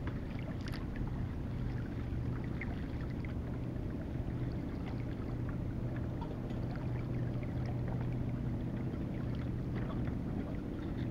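A boat's engine running steadily with a low, even hum, over a wash of water noise.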